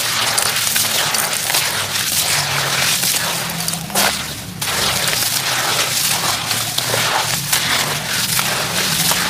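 Dry sand-cement lumps crushed by hand and crumbling into water in a basin: a dense crunching and crackling of grains and grit falling into the wet mix, with a sharper crunch about four seconds in.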